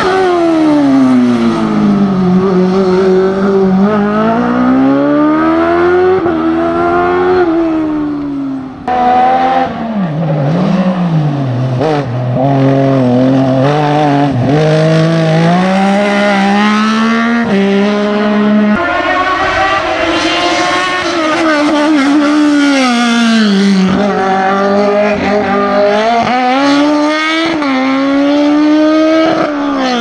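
Racing car engines revving hard and lifting off over and over as the cars weave through the slalom's cone chicanes, the pitch climbing and dropping every couple of seconds. The sound changes abruptly about a third of the way in and again about two-thirds in, as one car gives way to the next.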